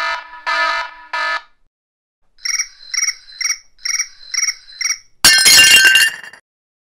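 Game-show style wrong-answer buzzer sounding three short times. Then a run of short electronic beeps, about three a second, and a loud burst of noise lasting about a second near the end.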